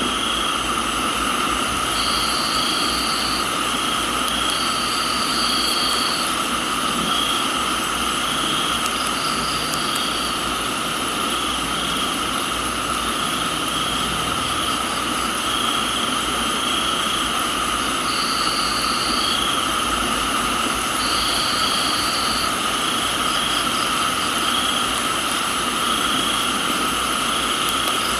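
Steady rain hiss under a chorus of crickets: one constant high trill, a faster-pulsing trill above it, and a higher trill that comes in for a second or so about four times.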